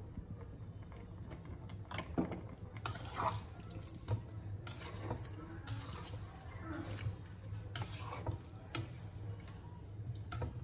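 Chicken and potatoes in a milky sauce being stirred and turned in a pan with a spatula: short irregular bursts of liquid sloshing, with light knocks of the spatula on the pan, over a low steady hum.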